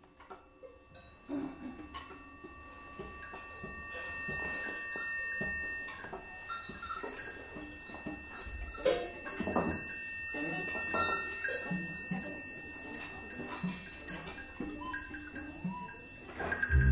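Free improvisation by an ensemble: several steady high tones held over a scatter of clicks, knocks, rattles and short pitched sounds, growing louder over the first few seconds, with a louder low thud near the end.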